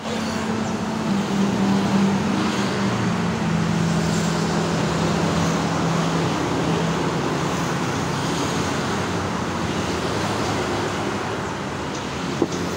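Steady road traffic noise with a low engine hum running through it. There are a couple of light knocks near the end.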